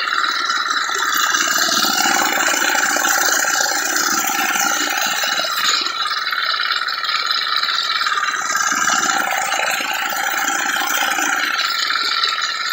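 Small engine of a two-wheel walk-behind tractor running steadily while its sickle-bar mower clatters through grass.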